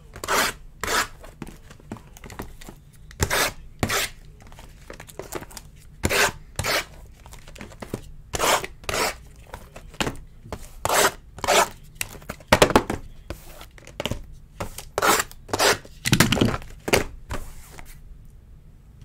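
Plastic shrink wrap being torn and peeled off a sealed trading-card box: about twenty short ripping and crinkling strokes, often in pairs, roughly one a second.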